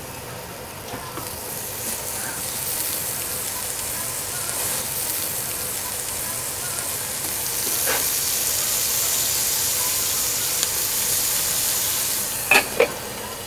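Bacon strips sizzling in a hot frying pan, the hiss growing louder as they fry. Near the end there are two sharp clicks.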